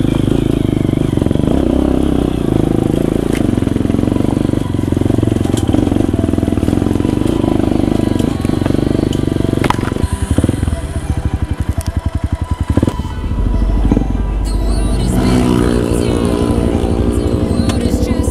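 Dirt motorcycle engine running under way along a trail, changing to a slower, pulsing chug about ten seconds in. Background music comes in near the end.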